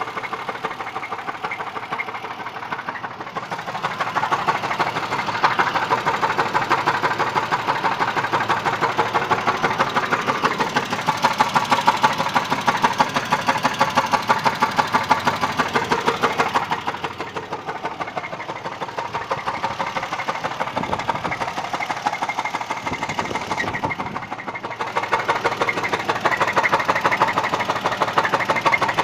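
A running engine with a rapid, even knocking, the unexplained engine knock that the owner is trying to track down. It grows louder and softer in spells.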